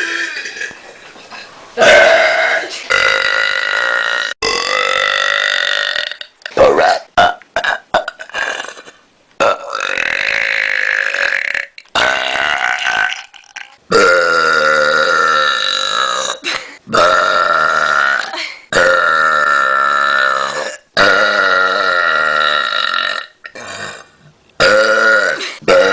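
A person burping over and over: a run of loud, drawn-out belches, most lasting one to two seconds, with a quick flurry of short burps about six to nine seconds in.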